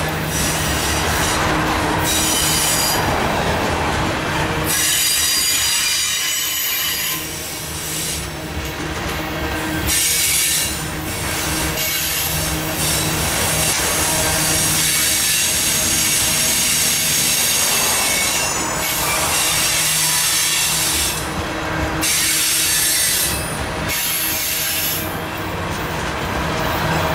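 Loaded coal hopper cars rolling past, wheels running steadily on the rails. A high-pitched wheel squeal comes and goes several times.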